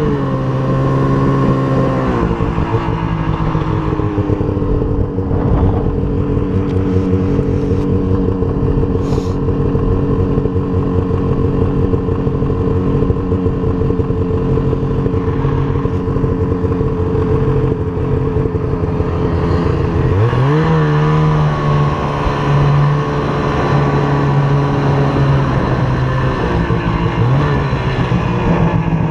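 Snowmobile's two-stroke engine under way, easing off about two seconds in, then holding a steady cruise before revving up again about two-thirds of the way through and dipping briefly near the end.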